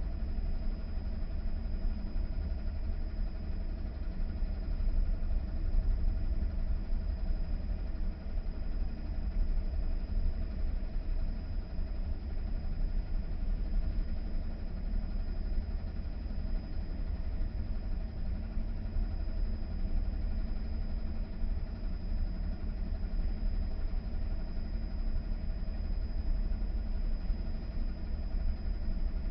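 AEG tumble dryer running with one bedsheet in the drum: a steady low hum and rumble from the motor and turning drum, with a thin, steady high-pitched whine over it.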